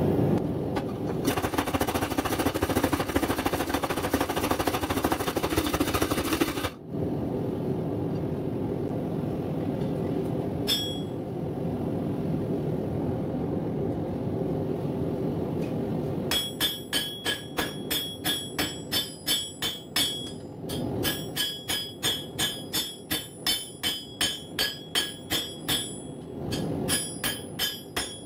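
Hand hammer blows ringing on an anvil, forging hot coil-spring steel: a single strike, then from past the middle runs of about three blows a second with short pauses. Under them runs the steady roar of a propane forge, louder for the first several seconds and then cut off suddenly.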